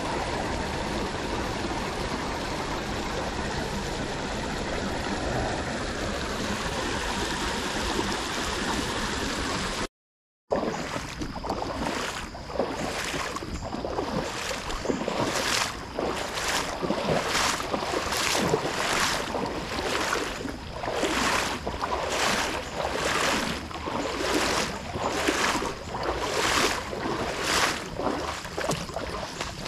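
Shallow creek water running steadily over rocks. After a brief break about ten seconds in, footsteps wade and splash through the shallow stream at walking pace, about three steps every two seconds.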